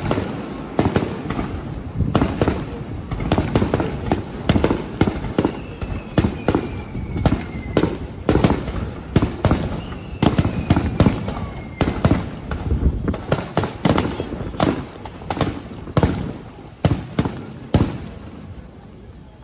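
Aerial fireworks bursting in rapid, overlapping succession, several loud bangs a second. Two faint falling whistles come through in the middle. The bangs thin out near the end.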